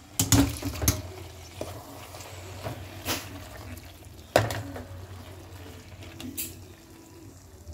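Beans and liquid sloshing in a metal cooking pot of spinach as they are stirred in, with five sharp knocks of metal against the pot. The loudest knock comes a little past the middle. A steady low hum runs underneath.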